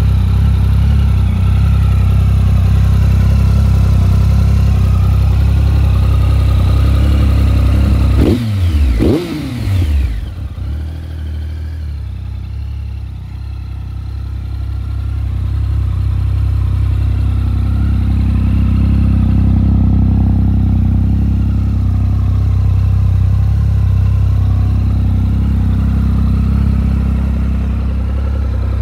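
Triumph Speed Triple R's 1050 cc inline-three engine idling through an Arrow aftermarket silencer, blipped twice in quick succession about eight seconds in, each rev rising and falling back, then settling into a steady idle that grows louder again later.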